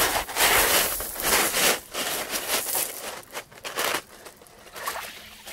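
Footsteps crunching on a coarse gravel and pebble beach: a run of dense crunches that grows sparser and quieter after about four seconds.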